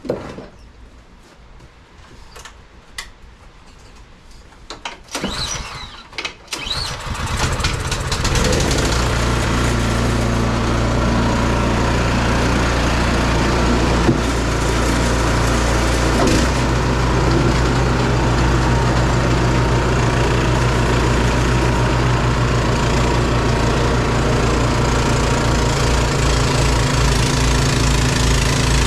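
Snowblower engine being started: a few sharp clicks and knocks, then the engine catches about seven seconds in and settles into a steady run.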